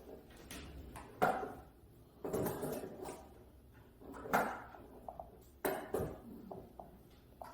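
Metal handcuffs clinking and knocking in about four short clatters as cuffed hands are moved about.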